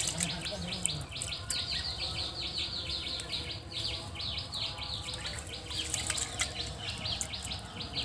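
Rapid, evenly repeated high chirping from an insect, about five to six chirps a second, going on without a break.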